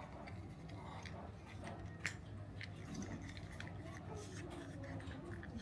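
Small clicks and ticks of plastic toy pistol parts being handled and fitted together, with one sharper click about two seconds in.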